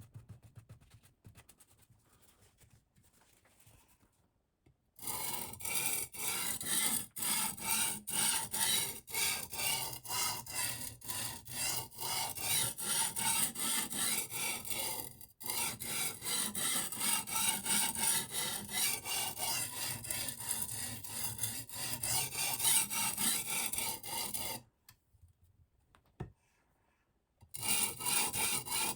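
Silicon carbide oil stone being stroked along a knife edge on a guided sharpening system, in quick, gritty back-and-forth strokes. The strokes start about five seconds in, pause for a few seconds near the end, then resume.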